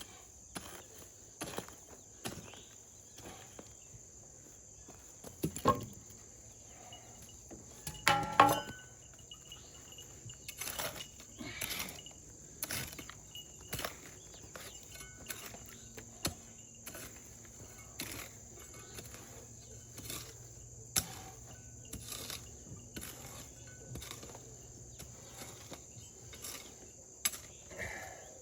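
Steady high-pitched chirring of insects throughout, with scattered short clicks and knocks from work by hand. The loudest knocks come about six seconds in and about eight seconds in.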